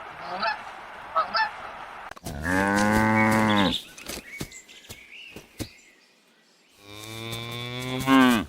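A few short goose honks in the first two seconds, then a cow mooing twice: two long, low calls about four seconds apart.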